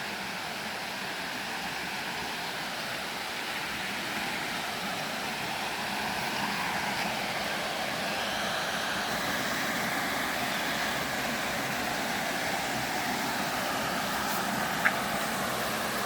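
Steady rush of flowing water, slowly growing louder, with a single sharp click near the end.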